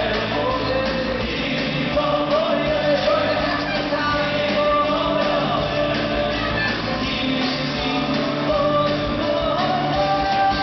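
Live concert music: a male singer singing a Jewish pop song into a microphone, backed by a live band.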